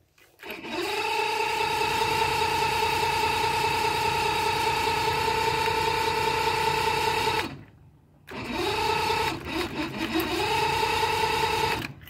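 Electric starter motor of a 1980 Mercury Marine six-cylinder outboard whining steadily as the key is held. It spins up, runs for about seven seconds, stops, then cranks again for a few seconds. The engine never catches: there is no spark.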